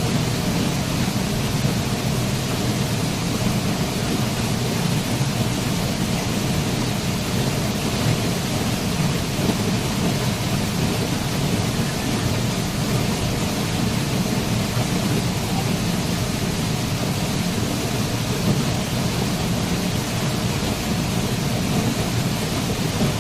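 Waterfall: a steady, unbroken rush of falling water with a deep rumble and no distinct events.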